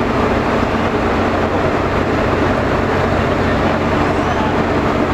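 Steady low drone of ship's machinery: a hum that holds one pitch under a wash of noise, with no change in level.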